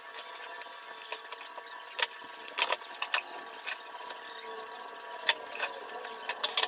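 Hand tools clinking and clattering in short knocks as they are picked up and set down, about nine times, over a steady faint hum.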